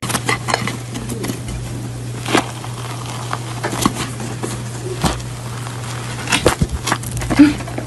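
Soft crackles and clicks of a chocolate lava cake's crust being torn open by hand, scattered throughout and loudest near the end, over a steady low hum and hiss.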